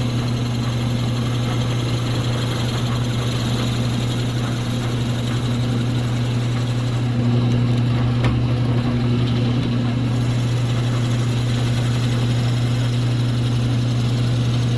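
Drill press running with a steady motor hum while a 3/8-inch high-speed steel bit bores into a wooden pen blank, the bit backed out now and then to clear the chips.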